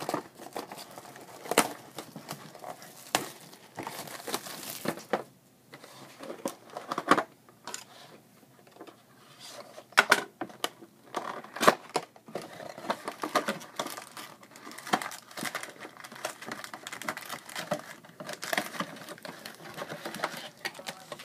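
Cellophane shrink-wrap being torn and crinkled off a cardboard trading-card box, with irregular crackles and sharp clicks as the box is handled. Near the end the box lid is opened and the foil card packs inside are handled.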